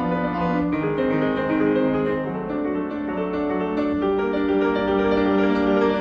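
Background piano music: slow, sustained chords, with notes changing every second or so.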